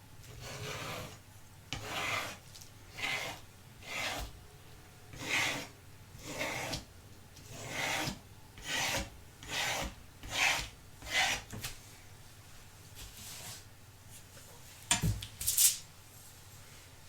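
Rasping, rubbing strokes on a hard surface, about one a second for a dozen strokes, followed by a few sharp clicks about three quarters of the way through.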